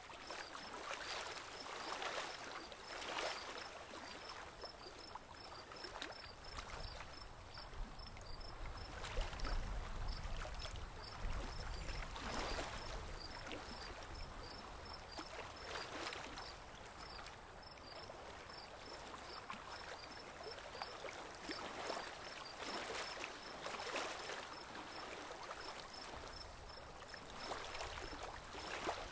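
Water swishing and lapping around a small boat moving slowly on a calm river, in irregular swishes a second or a few apart. A faint, evenly repeated high chirping runs underneath.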